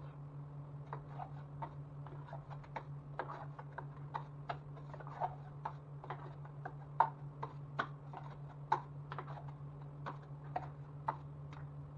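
Scattered light clicks and taps at an uneven pace, with a few sharper knocks, over a steady low hum.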